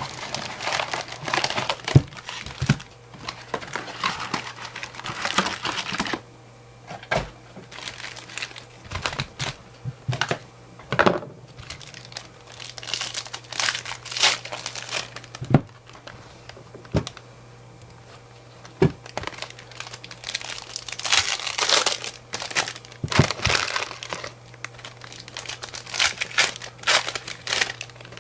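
Foil trading-card pack wrappers being torn open and crinkled, with cards handled, in irregular bursts of rustling and sharp clicks over a low steady hum.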